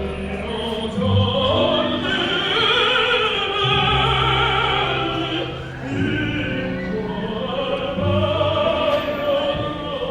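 Classical music with an operatic voice singing, its pitch wavering with vibrato, over sustained low accompanying notes.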